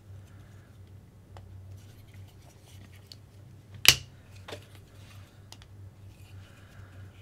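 Plastic RC kit parts being handled and slid together, giving scattered light clicks and one sharp click about four seconds in.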